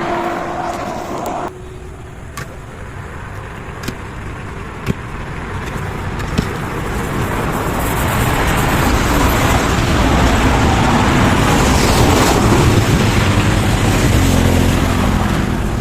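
A motor vehicle running, its noise swelling over several seconds as it comes closer, with a few sharp clicks in the first half.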